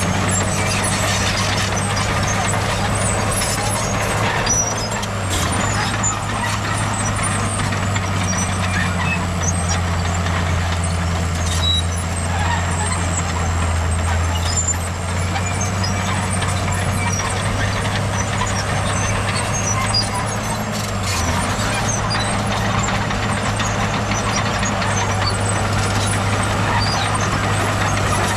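Heavy diesel engine of earthmoving machinery running steadily, a deep continuous drone, with small changes in its note about five seconds in and again near two-thirds through.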